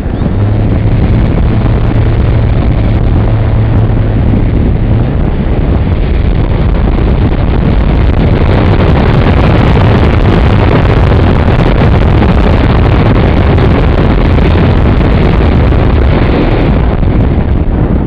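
Loud wind rushing over the microphone of a wing-mounted camera on a Multiplex Blizzard electric RC plane in fast flight, with a steady low hum from its motor and propeller that drops a little in pitch about five seconds in.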